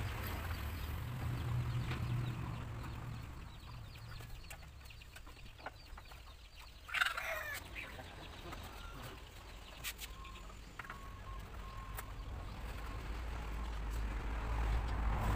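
A chicken gives one loud, short call about seven seconds in, over a low rumble that swells again near the end. Faint scratching of a sanding block rubbed by hand over a wooden seat runs underneath.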